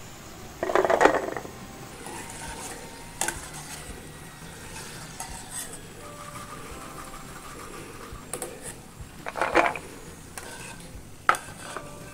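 A wire spider strainer scraping and clinking against a kadhai as fried chickpeas are scooped out of hot oil, with the oil sizzling steadily underneath. There are several short scrapes; the two loudest come about a second in and again near the end.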